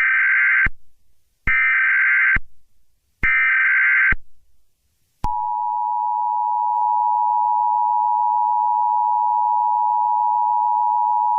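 Emergency Alert System tones: three bursts of the SAME header's squawking data, each just under a second long, then about five seconds in the steady two-tone EAS attention signal starts and holds.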